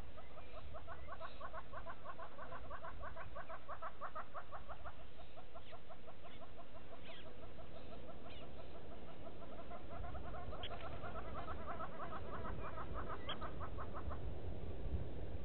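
An animal giving long, rapid series of clucking calls in two runs, the first lasting about eight seconds and the second starting about ten seconds in, over a steady low rumble.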